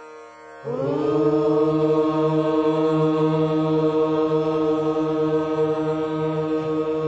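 Voices in unison begin chanting a single long held note about half a second in, steady in pitch, over a faint instrumental drone at the start.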